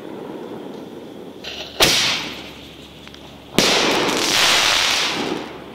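A Miracle Fireworks 60-gram canister shell fired from its tube with a sharp bang, then breaking in the air just under two seconds later with a second bang. The break is followed by about a second and a half of hissing and crackling from the silver chrysanthemum ring burst.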